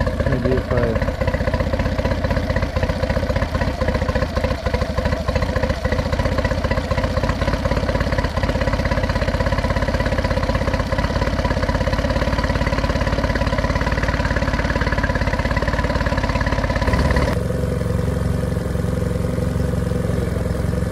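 A 2013 Yamaha 8 hp four-stroke two-cylinder outboard, fitted with a 9.9 hp carburetor, running steadily out of the water while a screw on the carburetor is adjusted. Near the end the engine sound turns duller.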